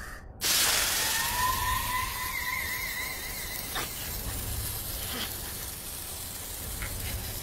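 Sudden loud rush of hissing noise about half a second in, with a few rising whistling tones and a brief wavering tone over it, the hiss then going on steadily.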